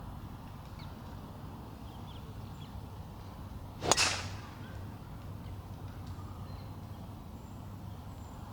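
A golf club swings and strikes a ball once, about four seconds in: a quick swish, then a sharp crack. A steady low background noise runs underneath.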